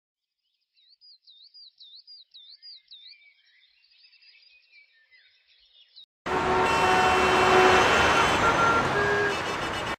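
Faint, high warbling electronic tone rising and falling about four times a second, like a distant car alarm or siren. About six seconds in, loud city street noise from traffic cuts in abruptly.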